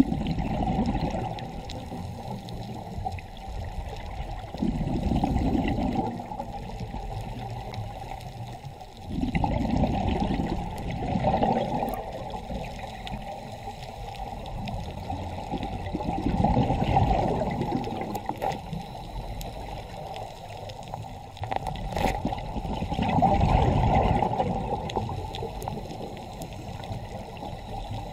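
Underwater bubbling and rumbling heard through a diving camera, swelling about every five to six seconds like a scuba diver's exhaled bubbles.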